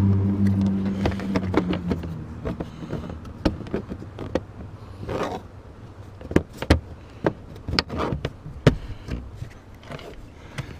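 A steady vehicle-like hum fades out over the first two seconds, followed by a series of sharp plastic clicks and taps: a trim panel being pressed back on, its clips snapping into place.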